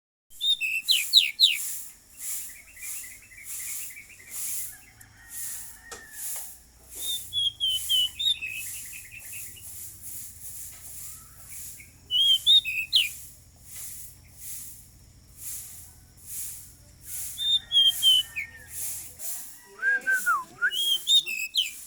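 Pied bushchat (decu) singing: bouts of quick whistled phrases with falling slurs and short trills, a few seconds apart, over a rasping hiss repeated about twice a second.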